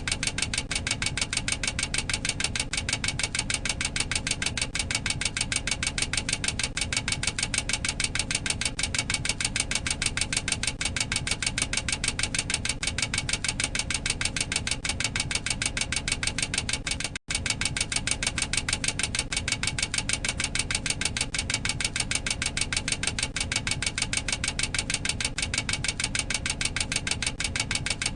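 Boeing 737-800 cockpit overspeed warning clacker sounding continuously: a fast, even train of sharp clicks, the aural alert that the aircraft has exceeded its maximum operating speed. It breaks off for an instant about seventeen seconds in, then resumes.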